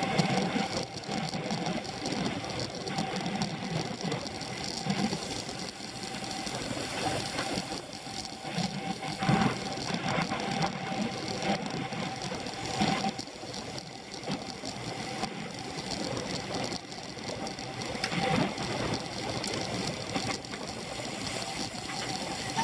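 Scott Foil road bike with Dura-Ace components ridden in a race, heard through its handlebar-mounted camera: a steady, dense mechanical whir and rattle of drivetrain and road vibration.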